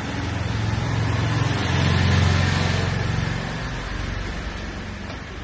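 A motor vehicle's engine passing close by, growing louder to a peak about two seconds in and then fading away.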